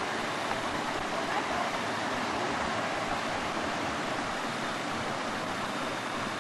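Steady rush of a waterfall: falling water.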